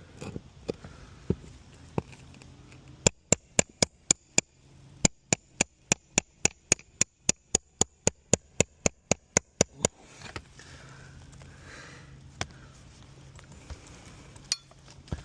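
Hammer rapidly striking a metal pry bar, about three to four sharp, ringing blows a second for about seven seconds, with a brief pause after the first half-dozen. This is the work of prying up roofing nails under asphalt shingles.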